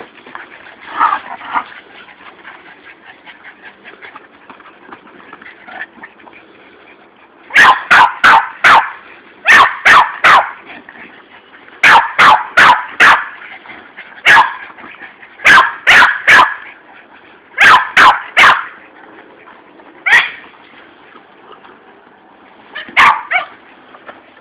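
Boston terrier barking at play: sharp barks in quick bursts of three or four, repeated about every two seconds after several seconds of softer yips, then a few single barks near the end.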